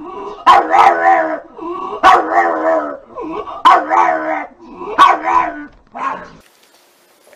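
A small black flat-faced dog giving repeated bark-howls: five loud, drawn-out, wavering calls about a second and a half apart, the last one short.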